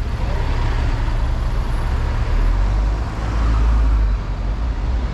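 Street traffic: the engines and tyres of a city bus and a passing car make a low rumble. It swells a little after two seconds in and eases around four seconds in.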